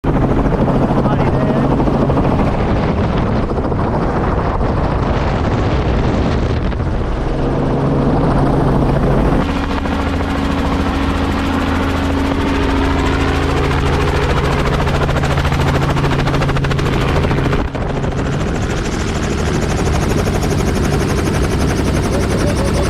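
Helicopter in flight, its rotor and engine running with a steady low hum over a broad rushing noise. The hum changes abruptly twice, about nine and eighteen seconds in.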